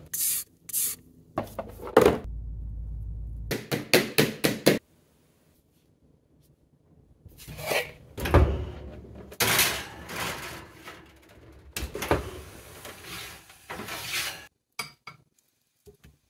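A run of knocks, clinks and rustling from kitchen utensils, bowls and a plastic piping bag being handled on a countertop, with short pauses between.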